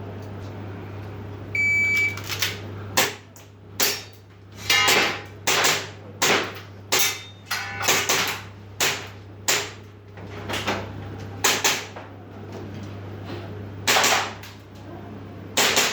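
Shot-timer start beep, then a string of sharp airsoft pistol shots fired at an uneven pace, about a dozen and a half cracks with short pauses between groups.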